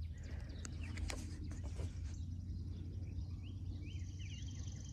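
Quiet outdoor ambience: a steady low rumble with scattered light knocks from the phone being handled and turned, and several short bird chirps from about halfway through.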